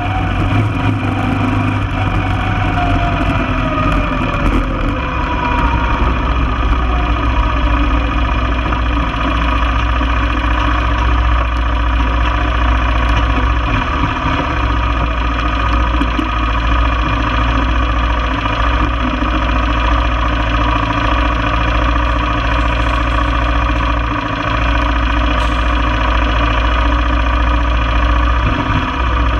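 1995 Honda Foreman ATV's single-cylinder engine running, its pitch falling as the quad slows over the first several seconds, then running steadily at low speed.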